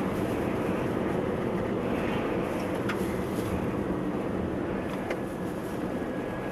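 A car driving at a steady speed on an asphalt road: constant engine and tyre rumble heard inside the cabin.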